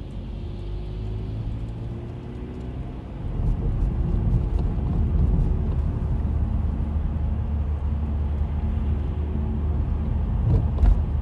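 Car engine and road noise heard from inside the cabin while driving, a steady low rumble that grows louder about three seconds in.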